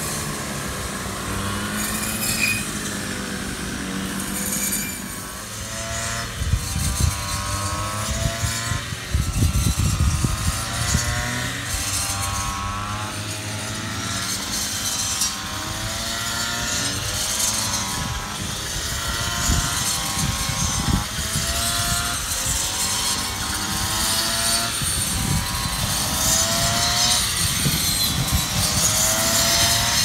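Two-stroke brush cutter used to cut rice stalks, its engine revving up and down over and over as the operator sweeps through the crop.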